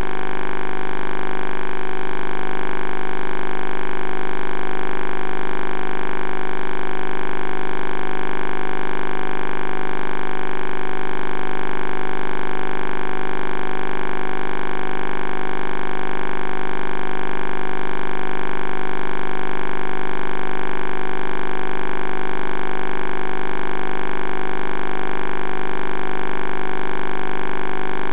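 A loud, steady hum made of many fixed tones at once, unchanging throughout.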